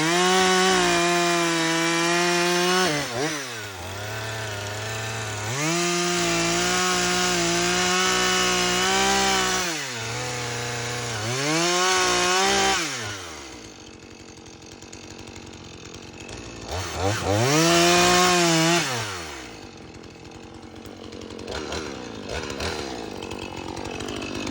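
Chainsaw cutting through alder brush: the engine is held at high revs for a few seconds at a time, the pitch sagging and climbing back about three times between cuts. It runs quieter in the last third.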